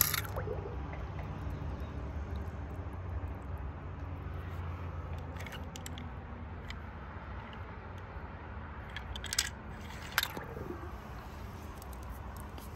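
A few short, squishy splashes and clicks as toy cars are handled in a small pool of water, two of them close together near the end, over a low steady hum.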